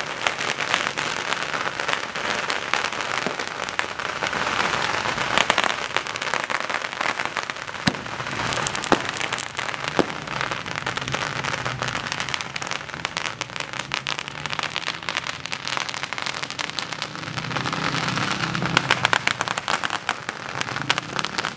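Masses of firecrackers exploding on the street in a dense, continuous crackle of rapid bangs, with a few louder single bangs standing out.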